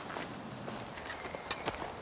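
Footsteps crunching over twigs and leaf litter, with a couple of small snaps about one and a half seconds in.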